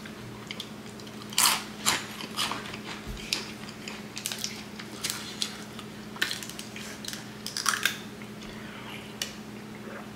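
Crisp crunching and crackling from chewing Flamin' Hot Cheetos, the loudest crunches about a second and a half in, then a clicking crackle as the cap of a plastic sports-drink bottle is twisted open. A steady low hum runs underneath.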